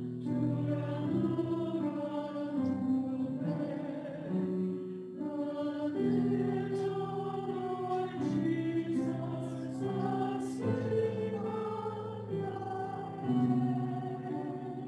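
Mixed choir of men and women singing a hymn-like piece in held chords that move together every second or so.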